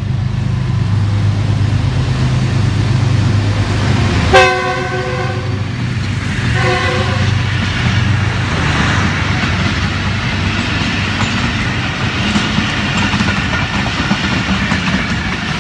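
GE U20 diesel-electric locomotive running slowly toward the camera with a steady low engine hum, then sounding its horn twice: a loud blast about four seconds in and a shorter one about two seconds later. Passenger coaches then roll past with a steady rumble and clatter of wheels on rail joints.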